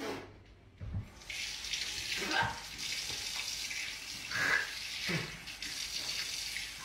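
Water running steadily from a tap into a sink, starting about a second in.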